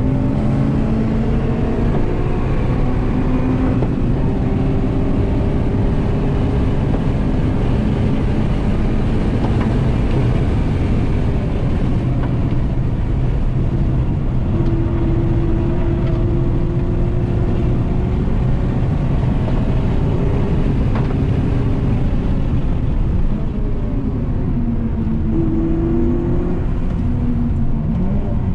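Honda Civic Type R FN2's 2.0-litre four-cylinder i-VTEC engine heard from inside the cabin at track pace, its pitch repeatedly climbing and dropping as the car accelerates and slows through the corners, over a steady rush of road noise.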